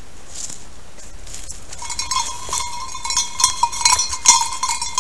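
A hunting dog's collar bell jingling and ringing as the English setter moves through the wood. It comes in about two seconds in and gets louder and more jangly toward the end.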